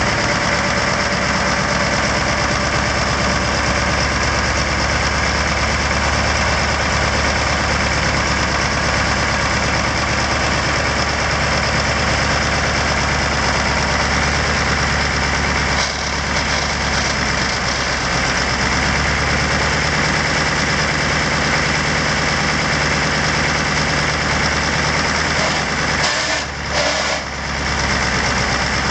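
Massey Ferguson MF 2775 tractor's Perkins V8 diesel engine idling steadily.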